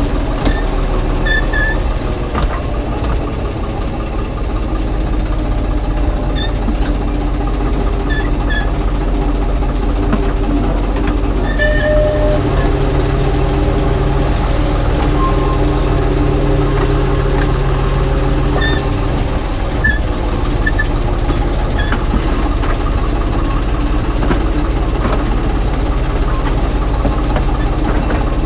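Narrow-gauge locomotive running steadily along the line, its engine note holding even under a steady low rumble, with scattered light clicks from the wheels and track.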